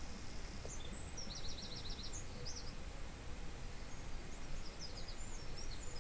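Small birds chirping, with a quick run of repeated chirps about one and a half seconds in, over a steady low rumble.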